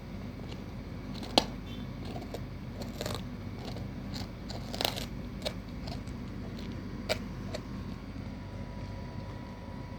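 Doberman gnawing a cow bone: scattered sharp cracks and crunches as the bone gives under his jaws, the loudest about a second and a half in, others near the middle and about seven seconds in.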